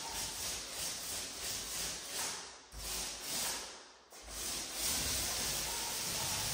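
Wet paint being spread on a wall in repeated back-and-forth strokes, a rhythmic sticky rubbing hiss, with brief breaks about two and a half seconds in and near four seconds as the tool is lifted and reloaded.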